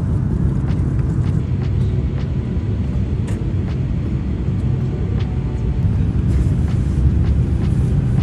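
Steady low rumble of an airliner cabin in flight, the engine and air noise heard from a passenger seat, with a few faint ticks on top.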